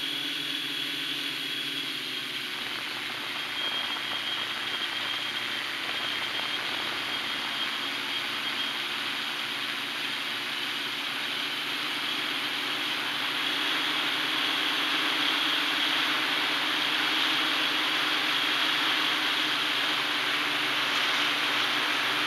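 Hexacopter's electric motors and propellers running in flight, heard from on board: a steady high whine over a broad rushing noise, getting louder a little past halfway.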